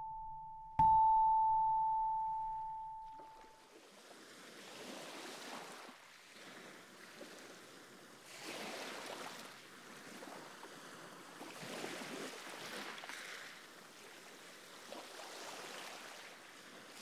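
A single struck chime note, like a glockenspiel bar, rings out about a second in and fades over two to three seconds. It gives way to a soft rushing noise, like distant surf, that swells and ebbs every few seconds.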